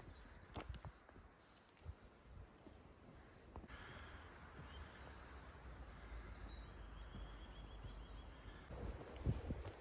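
Faint bird calls: short high chirps that drop in pitch, in quick groups of three during the first few seconds, over a low wind-like rumble. A few soft thumps come near the end.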